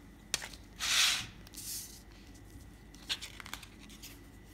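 Paper leaflet and booklet rustling and sliding as they are handled out of a plastic CD jewel case, with a few light clicks and taps. The loudest rustle is a short swish about a second in, with a smaller one just after.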